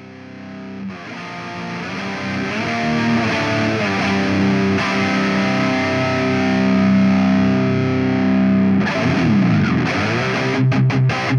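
High-gain distorted electric guitar through an EVH 5150 III-style amp simulation: held chords fade up and ring out, a note slides in pitch about nine seconds in, then short, rhythmic low notes start near the end.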